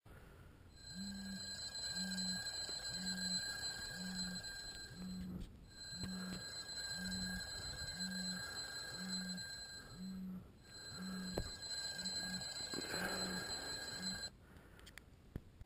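Smartphone alarm ringing: a steady high alarm tone sounding in stretches of about five seconds with short gaps, over a low buzz that pulses about once a second. The alarm cuts off suddenly a little before the end.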